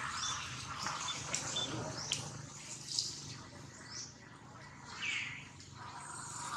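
Outdoor ambience with short, sharp bird chirps about once a second and one lower sweeping call about five seconds in.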